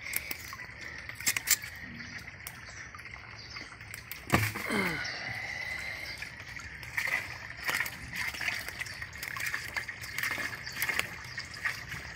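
Shallow pond water sloshing and splashing as netted tilapia flap about, with sharp slaps every second or two, the loudest about four seconds in. A faint steady high drone runs underneath.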